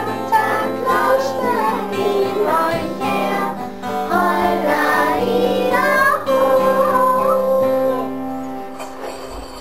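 A group of young children singing a song together in unison over a steady instrumental accompaniment. The singing ends on a held note about eight seconds in and the sound fades away.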